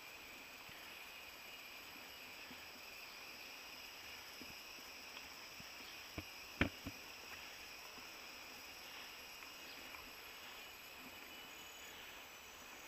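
Faint, steady insect chorus from the surrounding tropical forest, high and buzzing. About halfway through, three sharp clicks in quick succession, the middle one loudest.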